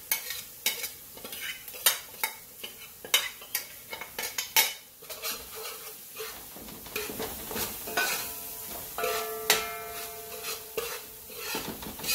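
Metal spoon stirring and scraping curry paste of curry powder, jeera and garam masala around a hot pan of sautéed onions and scallions, clacking repeatedly against the pan, over a steady sizzle of the paste frying in oil as it toasts.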